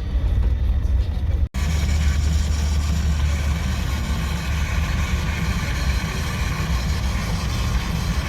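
Steady low engine rumble and road noise inside a moving bus, cut off for an instant about a second and a half in, then carrying on with more hiss.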